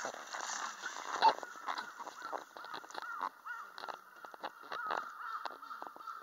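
A flock of birds calling over one another, many short calls overlapping without pause. A single sharp tap stands out about a second in.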